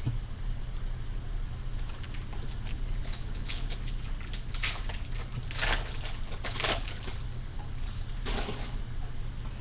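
Foil wrapper of a Bowman baseball card pack crinkling and tearing as it is opened: a run of crackly rustles that starts about two seconds in and ends shortly before the close, loudest in the middle.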